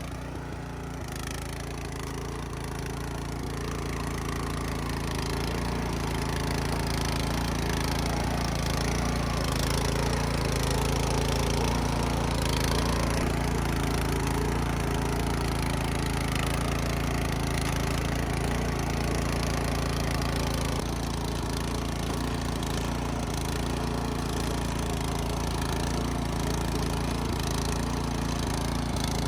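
Rototiller's gasoline engine running steadily, growing louder over the first few seconds and then holding an even note.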